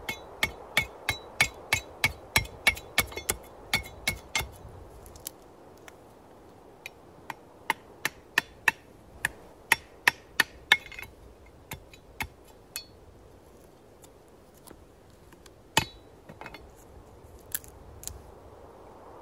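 Machete blade chopping into a thin wooden board on a log chopping block to split off kindling. A quick run of sharp, ringing strikes, about three a second, comes in the first four seconds. After that the strokes are slower and more spaced, with one loud blow near the end.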